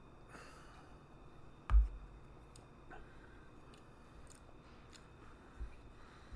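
A single heavy thump on a table a little under two seconds in, followed by a few faint, scattered clicks: objects being handled and set down during a beer tasting.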